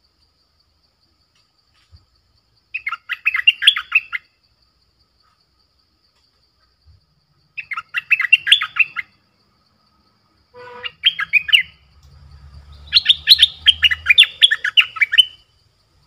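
A bulbul calling in four short bursts of rapid, bubbly chattering notes, the last burst the longest.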